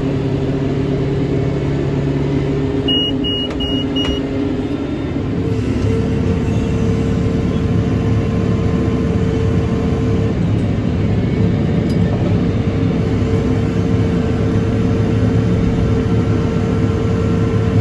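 Tractor engine running steadily under load while pulling a John Deere 459 round baler through the hay, its note shifting slightly about five seconds in. Four short, high electronic beeps sound about three seconds in.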